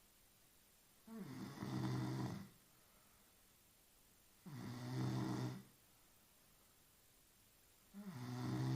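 A sleeping woman snoring, three snores about three and a half seconds apart, each a low, pitched rasp lasting a second or so, with quiet in between.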